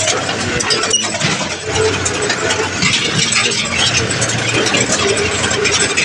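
Tractor's diesel engine running steadily as the tractor drives along a rough dirt track, heard from the driver's seat, with a busy clattering rattle over the engine note.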